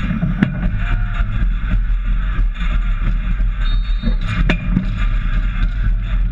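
Dek hockey play: a few sharp clacks of sticks and ball on the plastic-tile rink, the loudest about four and a half seconds in, over a steady low rumble.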